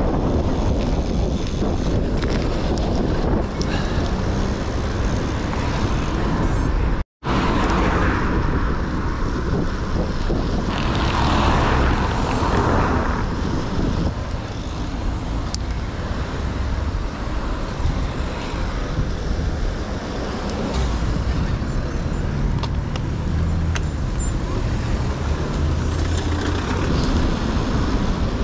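Wind noise buffeting a GoPro's microphones during a road-bike ride in city traffic, with cars and vans passing close by. The wind noise is heavier than it should be because the furniture-pad windscreens over the microphones are badly stuck on. The sound drops out for an instant about seven seconds in.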